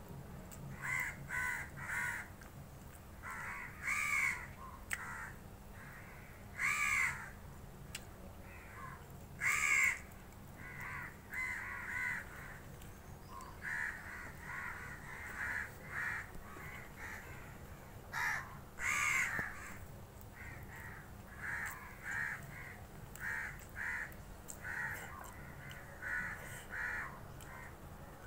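Crows cawing over and over: runs of short caws, with a few louder, drawn-out caws every few seconds.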